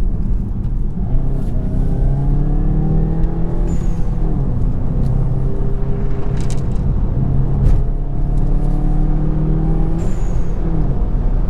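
2019 VW GTI's turbocharged 2.0-litre four-cylinder pulling hard under load. The revs climb, fall back about four seconds in, climb again and drop near the end. Each time the throttle is lifted there is a brief high falling chirp from the blow-off valve venting.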